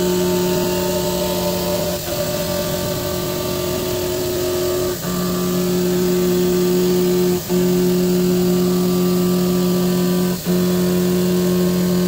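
CNC vertical milling machine cutting a part with an end mill: a loud, steady pitched cutting tone that dips briefly four times as the tool moves between passes.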